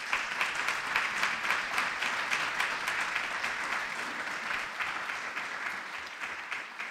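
Audience applauding, breaking out all at once and fading away near the end.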